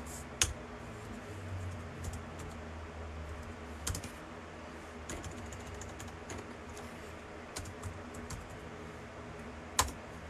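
Typing on a computer keyboard: scattered, irregular keystrokes with short pauses between them, over a low steady hum.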